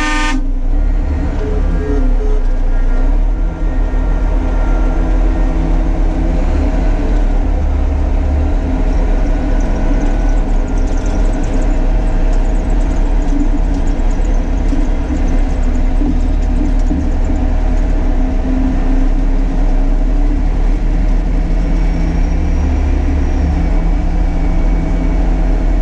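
Truck convoy on the move: heavy engines and road rumble make a steady deep drone with several steady engine tones. The tones glide briefly about two seconds in.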